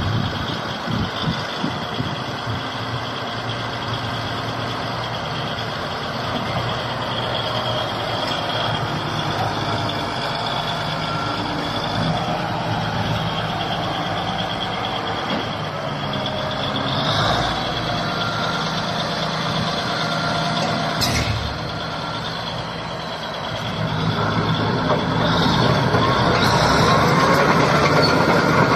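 Shantui SD22 crawler bulldozer's diesel engine running steadily with a high whine over its low hum. There is a brief sharp sound about two-thirds of the way through, and the machine gets louder over the last few seconds.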